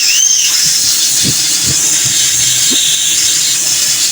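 A steady, loud hiss, strongest in the high register, with a brief squeal that rises and falls right at the start.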